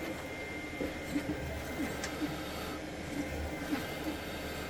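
A few faint light clicks and taps from handling small laptop parts, over a steady low hum.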